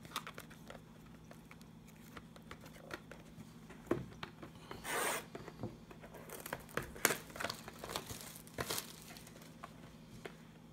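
Plastic shrink-wrap being torn and peeled off a trading card box, the cellophane crinkling, with scattered small clicks and taps of the box being handled. One short tearing sound about five seconds in stands out.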